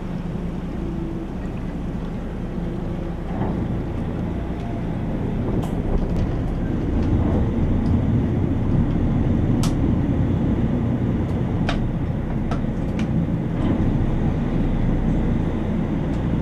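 Boat engine running steadily under way, a low rumble that grows a little louder about six seconds in, with several sharp clicks over it.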